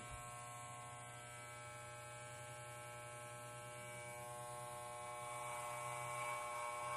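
Electric hair clippers running with a steady buzzing hum while cutting wig hair. The buzz grows louder and rougher over the last couple of seconds.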